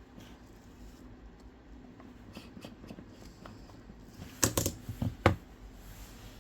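Light ticks and taps of small tools and phone parts being handled, then a quick cluster of four or five sharp clicks about four and a half to five and a half seconds in.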